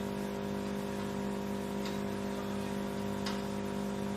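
Tractor-driven woodchipper running steadily off the PTO shaft, tractor engine and chipper together giving a constant hum with a low, even throb. Two faint short ticks come through, one about two seconds in and one near the end.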